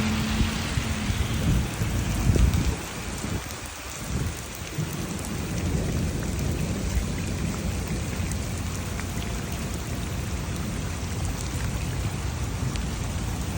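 Heavy rain falling in a steady hiss, with a low rumble swelling about two seconds in. A steady engine-like hum fades out in the first second.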